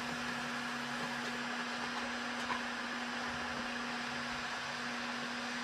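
Electric heat gun running on its high setting, a steady whoosh of hot air with a constant motor hum.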